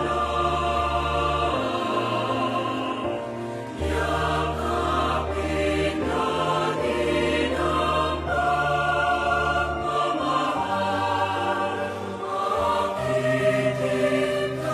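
Background music: a choir singing slow, sustained notes over held bass tones.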